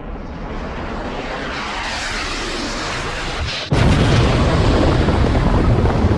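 Explosion sound effect: a rush of noise that swells louder and brighter for several seconds, then a sudden, louder blast a little past halfway that turns into a heavy, continuing rumble.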